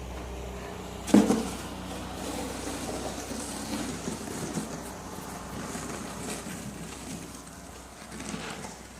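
Snow shovel striking the ground about a second in, then scraping and pushing snow in a run of rough scrapes that fade near the end.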